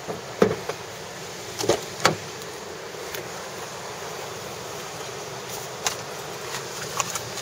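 Steady hiss inside a car, with a handful of short knocks and rustles as things are handled and the camera is moved, the loudest about half a second and two seconds in.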